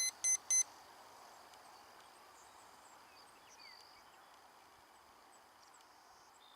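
Three short electronic beeps in quick succession, about a third of a second apart, from the RC model's electronics. After them comes a faint outdoor background with a few distant bird chirps.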